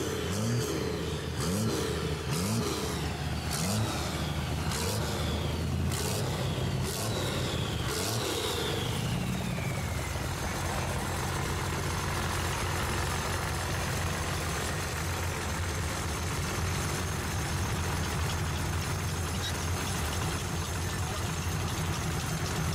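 Diesel engine of a dually rat rod revved in quick blips, about one a second, for the first eight seconds or so. The pitch then falls away and the engine settles to a steady idle.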